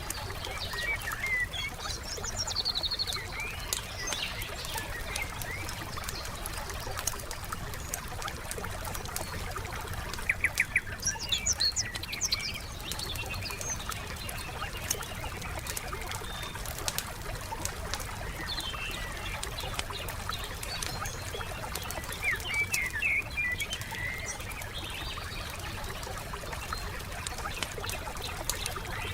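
Wood campfire crackling with many small pops over a steady low hiss, while songbirds chirp in a few short spells.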